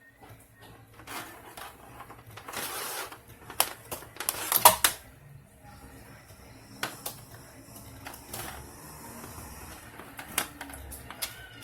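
Clicks, taps and clatter of hand tools and small parts being handled on a workbench during a TV board swap, with a short scraping rustle and a louder burst of clatter a little before the middle.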